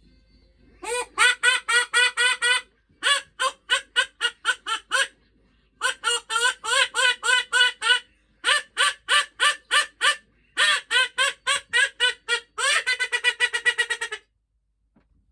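A duck quacking in fast runs of about five quacks a second, six runs in all with short pauses between them, the last run quicker still.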